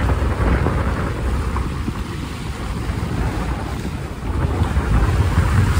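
Wind buffeting the microphone over the rush of water along the hull of a sailing yacht under way. The wind rumble eases a little midway and picks up again about four and a half seconds in.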